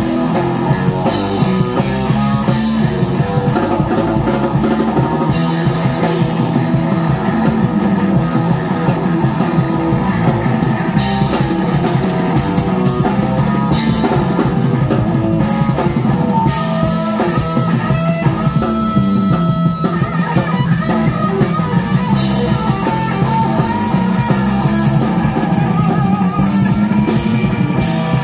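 Live rock band playing amplified music with electric guitar and a drum kit, a steady beat throughout.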